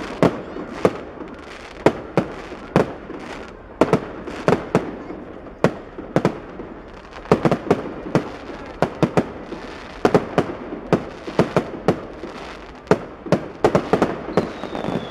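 Fireworks display going off: an uneven run of sharp bangs, at times several in quick succession.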